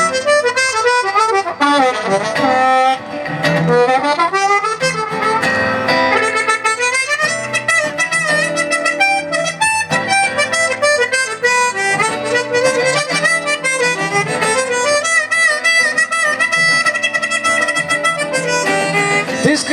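Harmonica playing an instrumental solo with bending, sliding notes over guitar accompaniment, in a live performance of a song.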